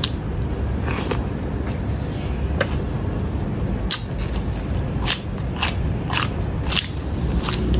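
Close-up eating sounds: a person chewing a mouthful of beef salad, then biting into raw cucumber, with a series of sharp crunches from about the middle onward.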